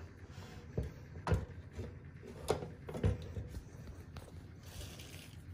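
Several scattered soft knocks and bumps of objects being handled, at irregular intervals over a low background, the loudest a little over a second, about two and a half, and about three seconds in.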